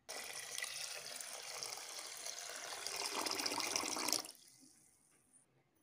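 Water poured into a pressure cooker pot over soaked rice and moong dal: a steady pour that stops suddenly about four seconds in.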